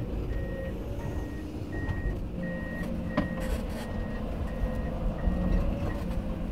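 Komatsu PC210 excavator running, heard from inside its cab: a steady engine and hydraulic hum under an alarm that beeps about three times every two seconds, with one sharp knock about halfway through.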